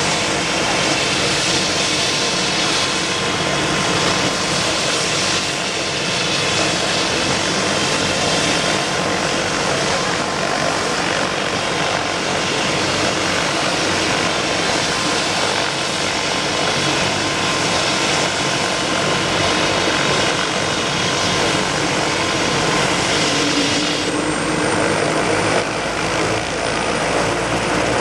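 Airbus AS350 Écureuil helicopter running on the ground with its main rotor turning: a steady turbine whine and rotor noise. About four seconds before the end, a new high whine comes in and a lower tone rises in pitch.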